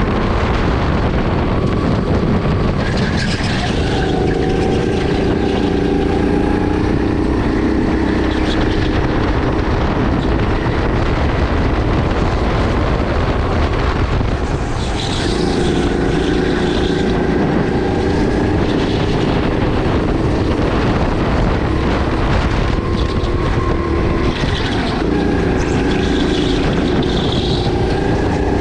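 Sodi RX8 kart's 270 cc LPG four-stroke engine running at speed around the track. Its note falls twice, about halfway through and again near the end, and climbs back up each time, like a lift-off for a corner followed by acceleration.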